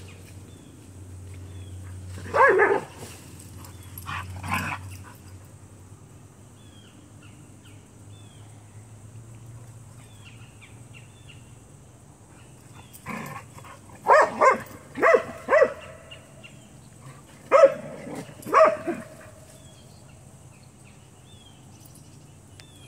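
A dog barking in play while wrestling with another dog: a couple of barks near the start, then a quick run of about eight barks around the middle.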